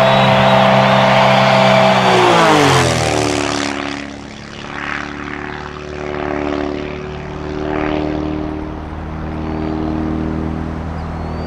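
Giles 202 aerobatic plane's propeller engine running at high pitch, then dropping in pitch about two seconds in and running on lower, with slow rises and falls in loudness.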